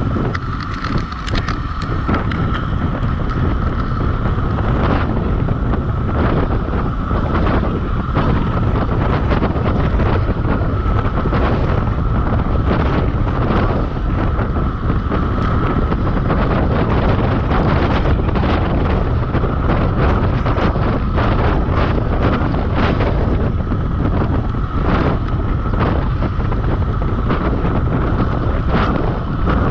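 Heavy wind rushing over the microphone during a fast downhill ride, steady throughout, with a constant high-pitched tone underneath and many short knocks scattered through it.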